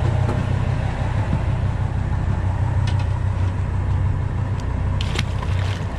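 The charter boat's engine running steadily, a low rumble, with a couple of light knocks about three and five seconds in.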